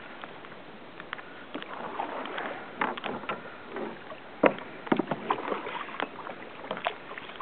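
Water lapping and splashing around a kayak at sea, with scattered sharp knocks and splashes at irregular intervals. The strongest comes about halfway through.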